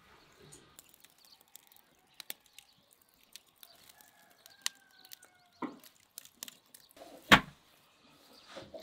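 A rooster crows faintly in the background once, for about a second, about four seconds in. Around it are scattered sharp clicks and knocks, with one loud thump near the end.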